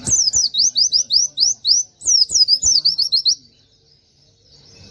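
A pleci (white-eye) singing a rapid 'tembakan' burst: a quick run of sharp, high, sweeping notes, several a second, with a brief break about two seconds in, stopping about three and a half seconds in.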